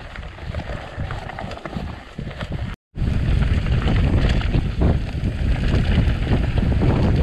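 Mountain bike rolling over rough ground, tyres rumbling and the bike rattling, with wind buffeting the microphone. The sound drops out for a moment about three seconds in and comes back louder.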